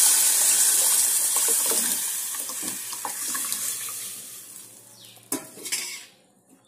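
Tomato-tamarind rasam broth poured into a pot of onions and green chillies fried in oil: a loud rushing, sizzling pour that fades away over about five seconds. A few light knocks follow near the end.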